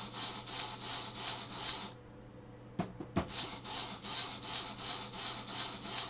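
Homemade rotary-switch coil driver running: brass brushes on a toothed wheel make and break a 12-volt battery circuit through two microwave oven transformers, giving a rhythmic rasping, sparking pulse about four times a second. It stops about two seconds in, two sharp clicks follow, and the pulsing starts again.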